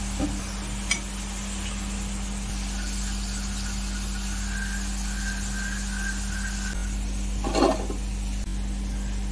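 Hot oil sizzling steadily as rice-flour-coated potato and pointed gourd fingers deep-fry in a steel pan, over a steady low hum. A slotted metal spoon clicks once about a second in, and a louder metal clatter comes near the end.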